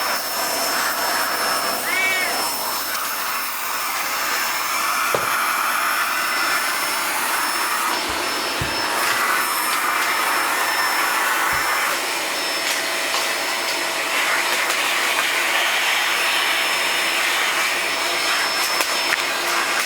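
A vacuum cleaner runs steadily with a thin high whine. A cat meows once about two seconds in, and there are a few dull knocks around the middle.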